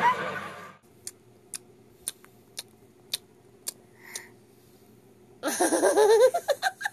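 A toddler yelling loudly with a wavering pitch for about the last second and a half. Before it there is a quiet stretch broken by a few sharp clicks, about two a second.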